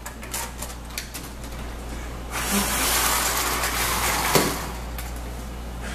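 Steady rushing noise like moving air, which swells about two seconds in, over a low hum, with a few light clicks at first and one sharp knock later on.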